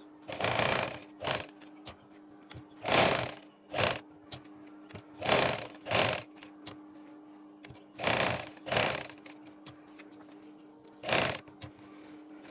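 Sewing machine stitching in short spurts as a patch is sewn down along its edges. It makes about five runs of half a second to a second, each followed quickly by a shorter burst, with pauses between them as the fabric is turned. A steady low hum runs underneath.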